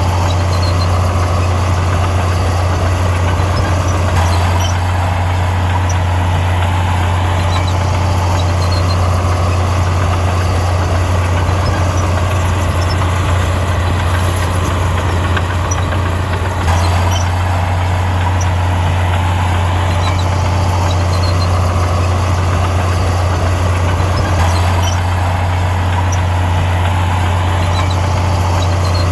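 Diesel engine of heavy earthmoving machinery running steadily with a deep, constant drone, its tone shifting a few times as the machine works.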